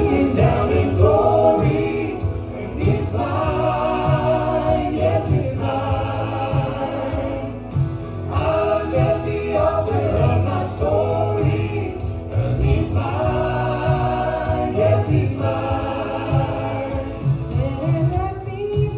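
Gospel song sung by several voices together over instrumental accompaniment, in sung phrases a few seconds long over a steady bass line.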